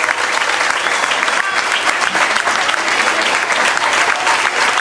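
Audience applauding: many hands clapping in a dense, steady patter, with a few voices among the crowd.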